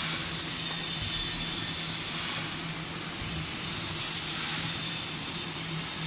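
Automatic single-cup packing machine and its infeed conveyor running: a steady low mechanical hum under a constant hiss.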